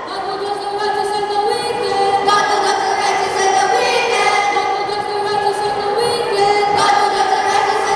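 A group of students singing together in unison, with a slow melody of held notes that step up and down in pitch.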